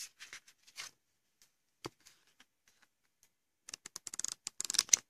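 Album photocards and paper packaging being handled: a few light clicks, one sharper tap about two seconds in, then a quick run of rustling, flicking sounds near the end.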